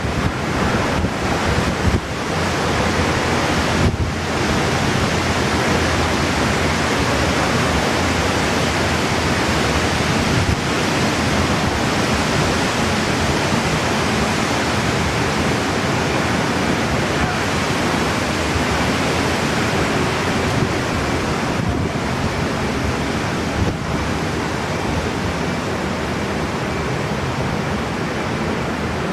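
Typhoon wind blowing hard across the microphone: a loud, steady rushing noise with no engine or tool tones in it.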